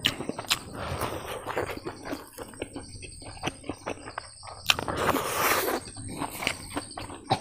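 Close-up chewing and lip smacking of a person eating fried rice and meat by hand, a run of small wet clicks. About five seconds in, a louder rushing, hissing sound lasts for about a second.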